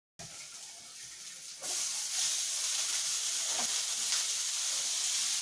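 Pieces of steak sizzling in a hot pan. The sizzle jumps louder about a second and a half in as the meat goes in, then runs as a steady hiss with a few faint ticks.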